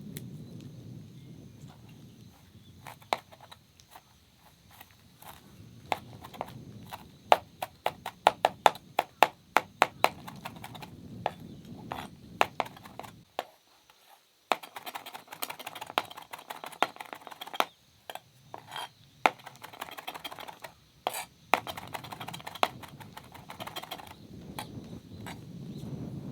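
Food preparation: a knife knocking on a cutting board in runs of quick sharp chops, about three or four a second at the busiest, mixed with clinks of utensils and dishes.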